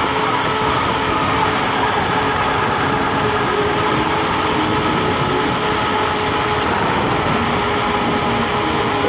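Nanrobot LS7+ electric scooter riding at a steady speed: a constant rush of wind and road noise, with a few steady whining tones from the motor.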